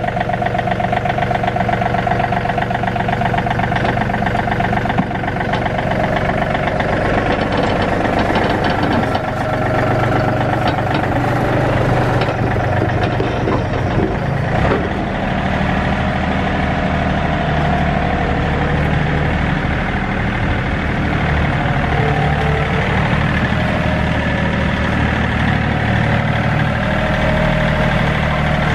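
John Deere 3032E compact tractor's three-cylinder diesel engine running steadily as the tractor drives off the trailer and away, with a few light knocks partway through.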